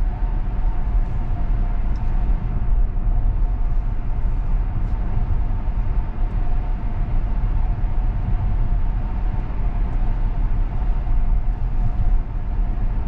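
Steady road and tyre rumble heard inside the cabin of a Tesla Model X electric SUV driving at speed, with a faint steady high hum over it.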